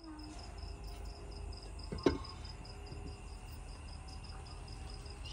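A cricket chirping: a short high pulse repeating evenly, about four or five times a second. One sharp knock about two seconds in.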